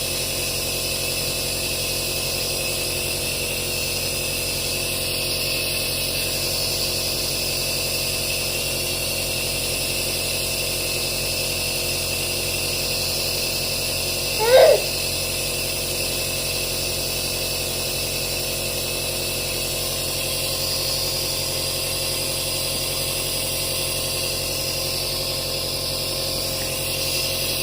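A steady machine hum, like a running motor or fan, with a single short cat meow about halfway through.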